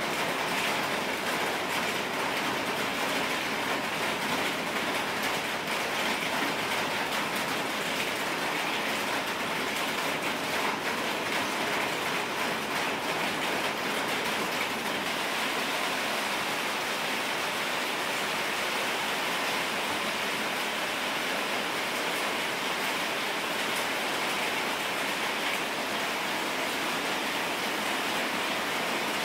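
Steady, even rushing noise, like rain or running water, holding at one level throughout with no distinct knocks or voices.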